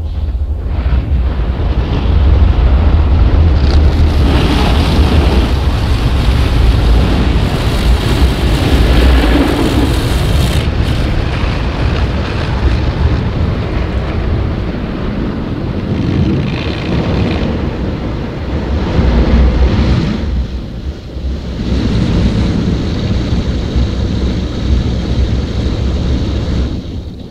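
Rotating brushes and water of a Kleindienst Euro Combi gantry car wash scrubbing over the car, heard from inside the cabin: a loud, steady rush with a deep rumble. A hissing spray rises about four seconds in and eases off around eleven seconds, and the noise briefly drops around twenty seconds in.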